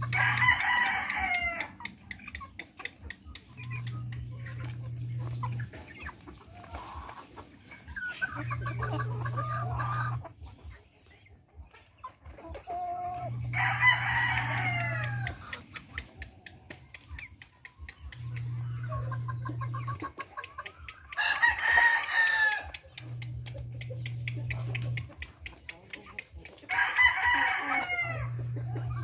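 A flock of heritage chickens clucking softly while pecking at food, broken four times by a loud, drawn-out call that falls in pitch, each lasting about a second and a half.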